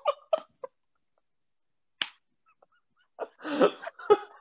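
Short, broken voice sounds from people in a small room, with one sharp smack about two seconds in and silent gaps between them.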